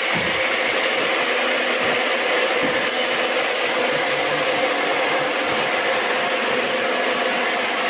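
Automatic scaffolding-pole welding machine running, a steady, even hiss with a faint steady hum under it.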